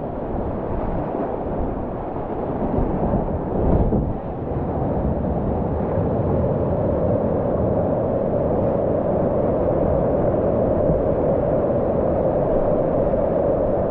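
Steady rushing roar of whitewater rapids around a kayak, with a brief louder surge about four seconds in.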